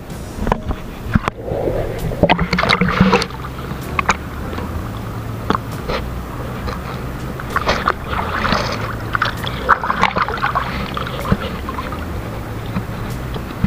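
Small boat engine running steadily, with frequent knocks and splashes over it.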